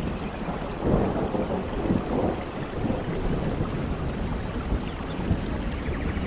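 Steady heavy rain with low rolling thunder rumbling underneath, swelling about one and two seconds in. Faint short high chirps come twice over the rain.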